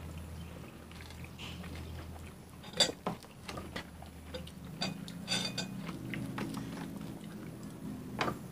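Scattered small clicks and taps of people eating oranges at a table, pulling apart and handling the segments, with one sharper click about three seconds in, over a faint low hum.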